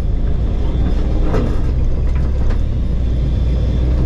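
Bulldozer's diesel engine running steadily, heard from inside the cab as a loud, low, continuous drone.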